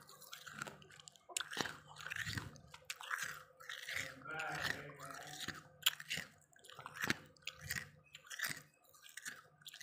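A mouthful of freezer frost being chewed up close, with crisp crunches about twice a second and one sharper crack about seven seconds in.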